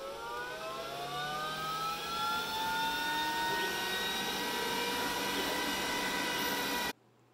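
Glowforge Pro laser cutter starting a job: its fans spin up with a rising whine that levels off into a steady whir and rush of air. The sound cuts off abruptly near the end.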